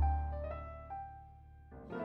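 Background piano music: a low note struck at the start and single melody notes ringing out and fading, then a new chord near the end.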